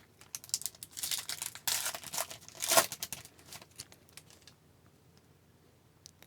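Foil trading-card pack wrapper being torn open and crinkled: a run of rustles and tearing, loudest in the middle, that stops about four and a half seconds in.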